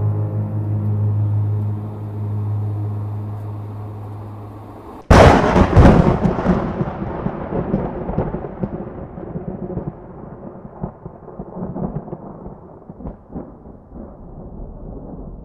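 A low held music tone fades out. About five seconds in comes a sudden loud thunderclap crack, which rolls on as a crackling rumble and dies away slowly.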